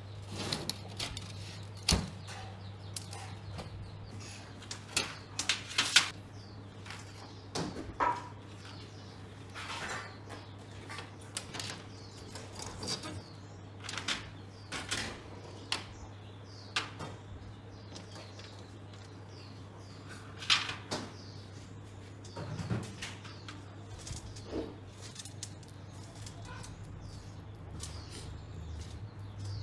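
Irregular clicks, knocks and scrapes of hand work on metal and plastic parts, the sharpest a little after two seconds and around six seconds, over a steady low hum.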